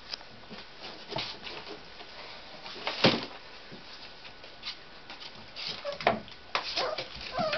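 Tibetan terrier puppies scuffling and playing on a tile floor: scattered clicks, patter and knocks, with a louder thump about three seconds in and another about six seconds in.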